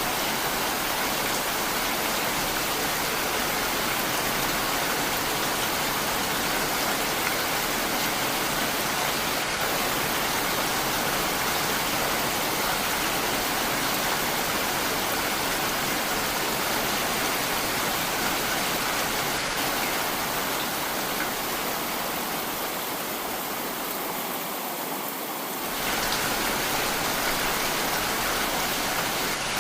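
Heavy rain falling steadily, an even hiss of water. It softens for a few seconds near the end, then comes back full all at once.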